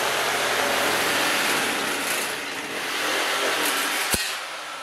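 Handheld electric power shear cutting through 18-gauge sheet steel: a steady motor buzz with the rasp of the cutting head. A sharp click comes about four seconds in, and it is quieter after that.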